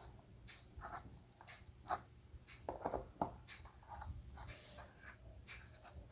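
Faint scraping and scattered light taps of hands working nails into a corrugated cardboard board, louder around two and three seconds in.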